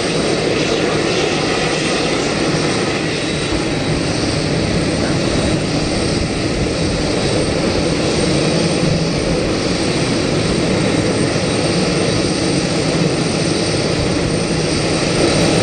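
Jet engines of a Boeing 747-400 running steadily at taxi power, an even roar with a faint high whine on top.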